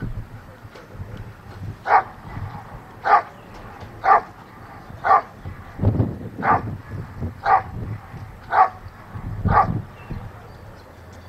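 A dog barking in a steady rhythm, eight short barks about a second apart.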